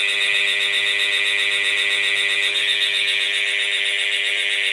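A loud, steady, high-pitched electronic alarm-like tone with a fast flutter.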